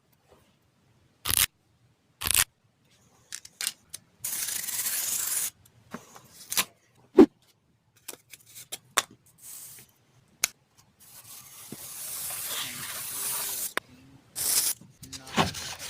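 Laminate flooring being cut: sharp clicks and snaps, with two stretches of hissing scrape, the longer one near the end.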